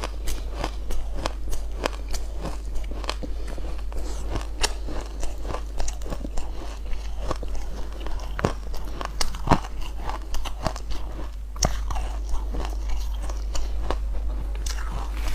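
A block of frozen ice being bitten and chewed close to a clip-on microphone: irregular sharp crunches and crackles as the ice breaks between the teeth.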